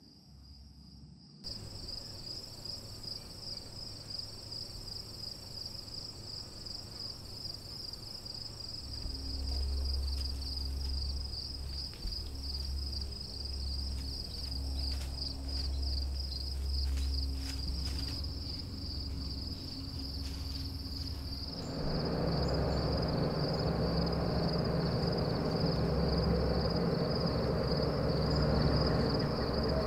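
A steady chorus of crickets: a high, finely pulsing trill. Under it runs a low rumble that grows louder about two-thirds of the way through.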